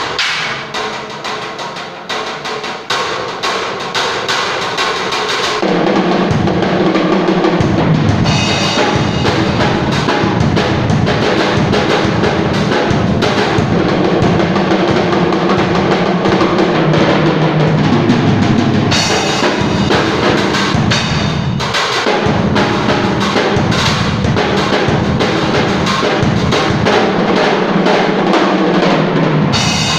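Drum kit being played during a soundcheck: kick, snare and cymbals in a steady groove, with bass and other instruments joining in about six seconds in.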